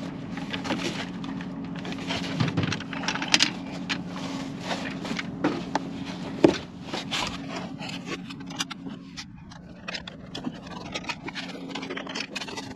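Scattered knocks, clicks and scrapes of lithium batteries being shifted and set in place on foam inside a storage bay, busiest in the first half, over a steady low hum.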